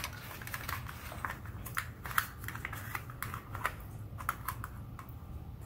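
Metal pie server scraping and clicking against a foil pie tin while prying out a slice of chess pie, with the crisp top crust crackling: a run of small, irregular clicks that thins out near the end.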